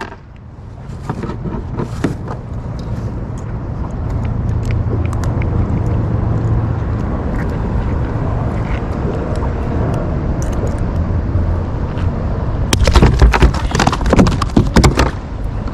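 Steady low wind rumble on the microphone over open water, with a flurry of sharp knocks and clatter about thirteen seconds in from handling on the plastic kayak.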